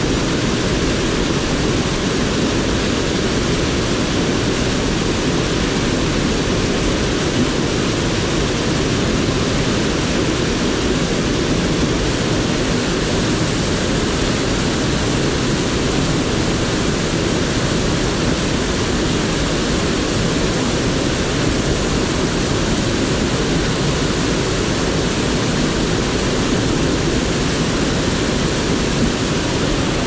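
Seti River whitewater rushing through a narrow rock gorge just below: a loud, steady rushing noise with no letup.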